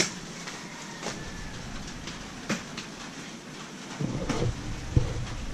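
Scattered sharp knocks and clicks, about a second apart, from footsteps and handling inside a small woven-bamboo hut. A low rumble comes in about four seconds in.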